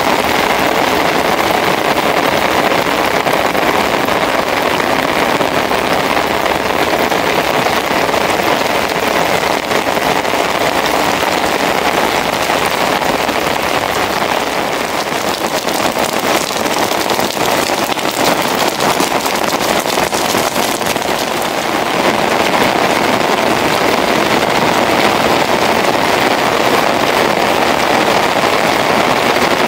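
Steady rain falling on puddles and wet ground, a dense hiss of drops that eases slightly about halfway through and then picks up again.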